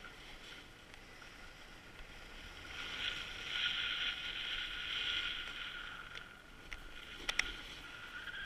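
Edges sliding and scraping over packed, groomed snow during a downhill run, a hiss that swells for a couple of seconds mid-way. Two sharp clicks near the end.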